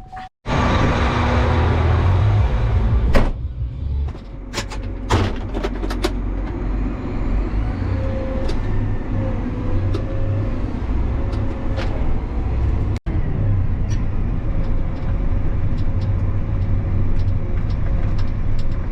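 A vehicle's engine running with a steady low rumble, with a few sharp clicks and knocks in the first several seconds.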